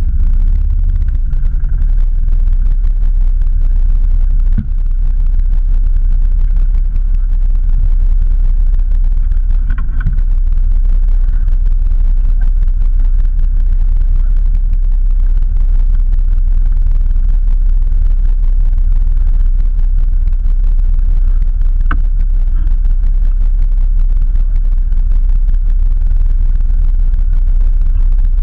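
Off-road vehicle's engine idling steadily: a loud, even low drone that holds one speed throughout.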